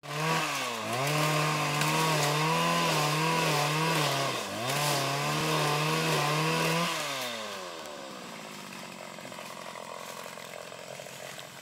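PC 75 motorized palm cutter (pole pruner) running at high revs while cutting oil palm fronds, its pitch wavering with two brief dips. About seven seconds in, the revs fall away and it becomes much quieter.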